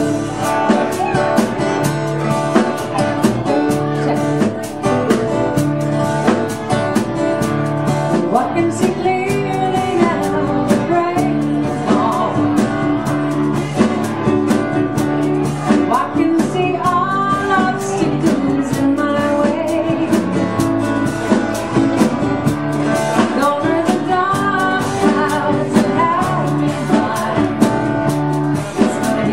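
Live band performing a song: a woman sings lead over her strummed acoustic guitar, with electric guitar and bass guitar.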